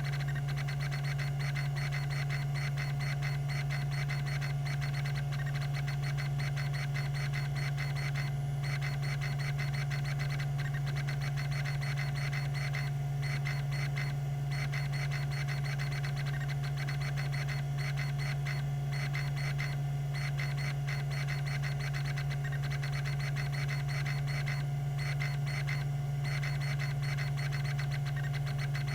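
Tandon TM362 hard drive running: a steady spindle hum under rapid, continuous ticking from its rack-and-pinion stepper head actuator seeking, with a few brief pauses in the ticking.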